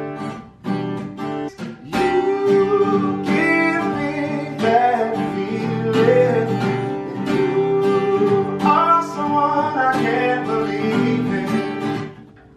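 Acoustic guitar strummed as accompaniment while a man sings long, held vocal lines over it; the music stops near the end.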